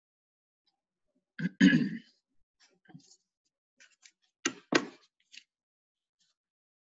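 A person coughing or clearing their throat close to the microphone: one longer throat-clear about a second and a half in, then two short coughs in quick succession a few seconds later.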